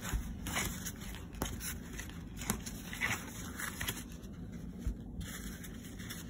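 Stiff brown paper crinkling and crunching in irregular crackles as it is shaken and waved about, with a few sharper crunches.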